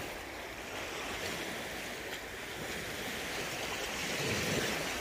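Small waves on loch water lapping and washing, with wind blowing across the microphone: a steady wash of noise that swells a little near the end.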